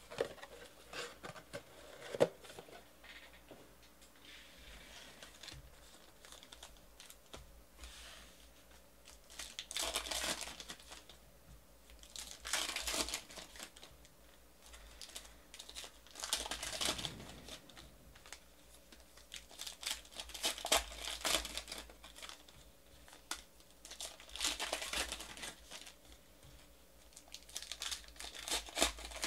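Trading-card pack wrappers being torn open and crinkled by hand, in bursts every few seconds. There is a sharp tap about two seconds in.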